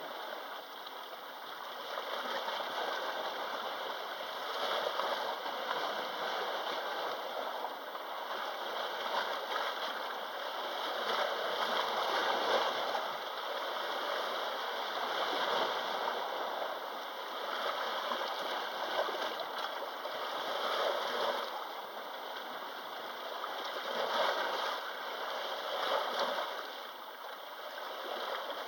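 Sea waves washing against the shore, the surf swelling and easing back every few seconds.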